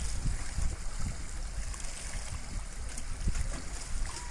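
Small sea waves lapping and sloshing against the boulders of a rock breakwater, an uneven noise with no clear rhythm.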